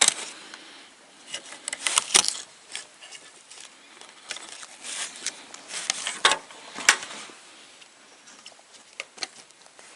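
Clicks, knocks and rustling as parts of an LCD television are handled during disassembly, with the sharpest clicks about two, six and seven seconds in.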